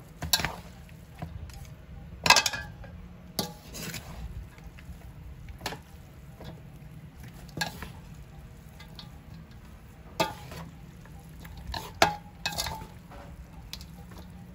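Metal ladle and chopsticks tossing stir-fried rice noodles in a large aluminium basin: irregular clinks of utensil on metal, roughly one every second or two, the sharpest about two seconds in and again near the end.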